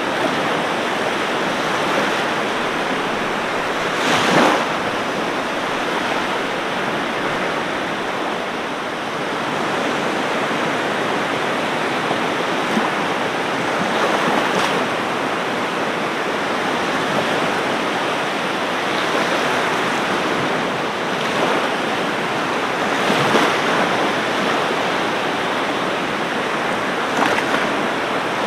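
Ocean surf: a steady wash of waves on a beach, with a few louder wave breaks standing out, four times.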